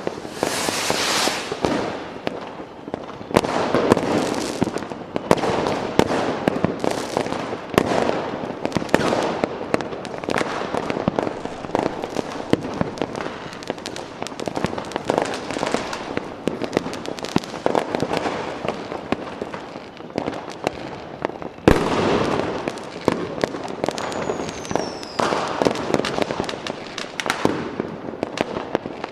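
Fireworks display: dense crackling and popping that swells in bursts every second or two, with one sharp bang about three-quarters of the way through and a short whistle falling in pitch just after it.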